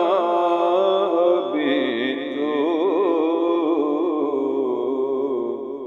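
Wordless male vocal chanting in the naat style, long held notes with slowly wavering pitch. The pitch steps down about a second and a half in, and the sound eases off near the end.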